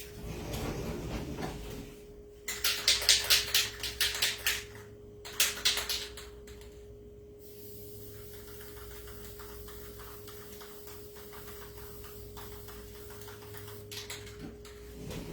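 An aerosol can of Mod Podge sealer being shaken in two rapid bursts of rattling, then a steady faint spraying hiss as the sealer goes onto the board.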